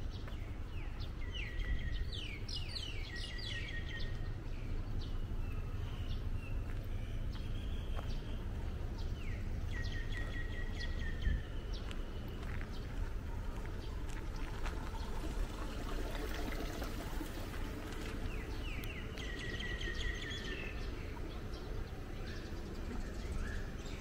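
A bird chirping in three short bursts of quick notes, over a steady low background rumble.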